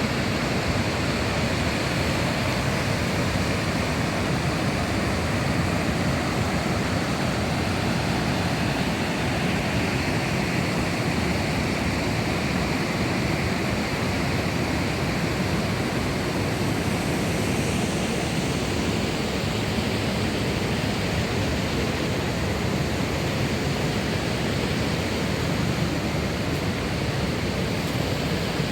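Steady rush of a waterfall: an even, unbroken roar of falling water with no change in level.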